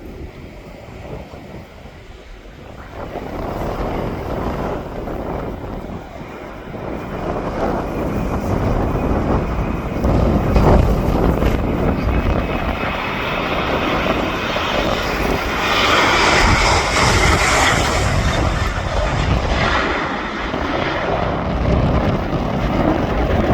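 Airliner's engines passing close, swelling over several seconds and loudest about two-thirds of the way through, with wind buffeting the phone's microphone.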